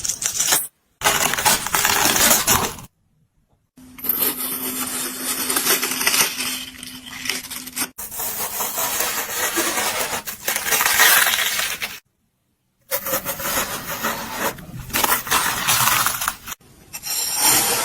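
Juicy watermelon crunching and crackling, crisp and wet, in several stretches broken by brief silences about a second in, around three seconds in and around twelve seconds in.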